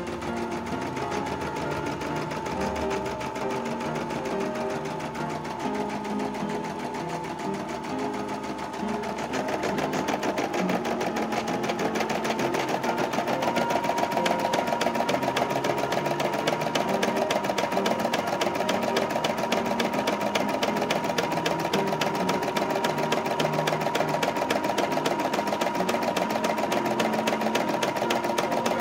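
Portable computerized embroidery machine (CNY e960) running, its needle stitching in a rapid, even rhythm as it sews the outline of a design. It gets somewhat louder about ten seconds in.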